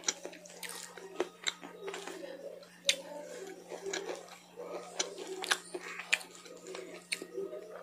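Close-miked chewing with the mouth closed: wet mouth smacks and many sharp, irregular crunchy clicks as food is chewed. A faint steady low hum runs underneath.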